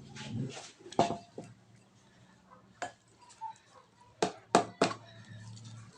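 Kitchenware knocking and clattering as the washed shrimp are handled: a couple of single knocks, then three sharp knocks in quick succession a little after four seconds in.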